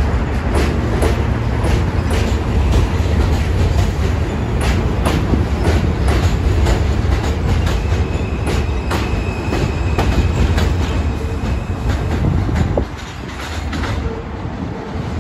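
A New York City subway train pulling out along an elevated steel track close by, with a heavy rumble and wheels clacking over the rail joints. A thin, steady high whine rises over it for a few seconds in the middle. Near the end the rumble drops off sharply as the last car goes by.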